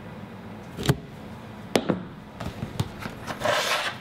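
Kitchen handling sounds of a baking tray and its clear plastic proofing cover: a few sharp clacks and smaller taps, then a brief scraping swish near the end.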